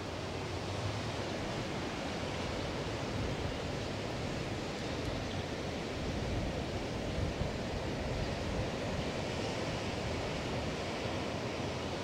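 Atlantic Ocean surf washing on the beach: a steady, even rush of noise.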